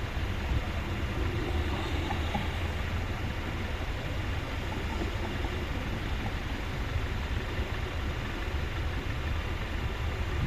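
Steady low rumble of outdoor background noise with no siren tone sounding.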